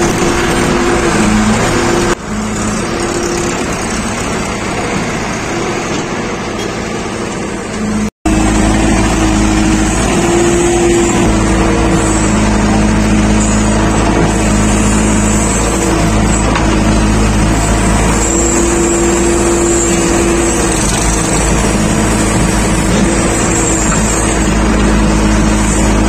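JCB 3DX backhoe loader's diesel engine running steadily, heard from the cab. A brief dropout about eight seconds in, after which the engine swells a few times as the backhoe arm digs and loads mud.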